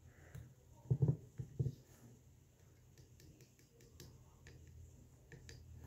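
Small metal clicks and taps as alligator clips are handled and clipped onto the terminals of a small battery, with a couple of short low sounds about a second in.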